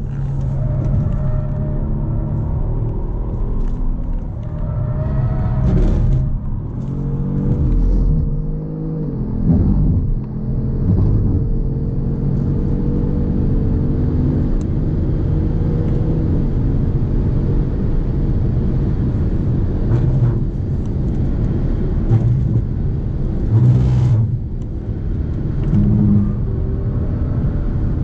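Kia Stinger GT's 3.3-litre twin-turbo V6 driven hard around a racetrack lap, revs climbing through the gears and falling away under braking. A long, nearly steady, slowly rising stretch comes near the middle.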